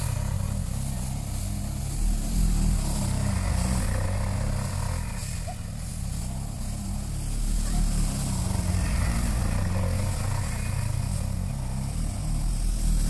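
Auto-rickshaw's small engine running as the three-wheeler drives over paddy straw spread on the ground to thresh the rice under its wheels, the engine swelling and easing a few times.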